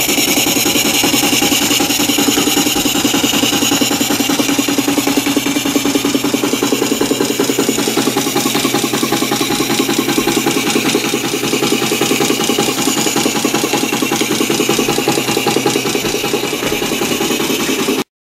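Märklin 4147/11 live-steam ship's engine running at speed, a rapid, even chuffing and clatter as it drives a dynamo. The sound cuts off abruptly for a moment near the end.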